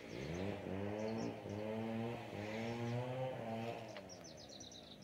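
A cow lowing: one long, low moo that rises in pitch at the start, holds for about three seconds and falls away near the end.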